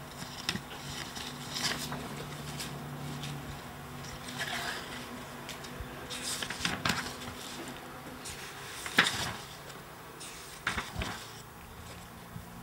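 Sheets of paper rustling and being turned over on a desk, in short irregular crackling strokes with the loudest about nine seconds in.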